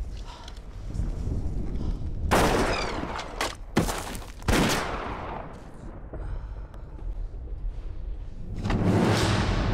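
Battle sound effects of gunfire and blasts over a low rumble: a loud burst a couple of seconds in, then a few sharp single shots, and a swelling rush of noise near the end.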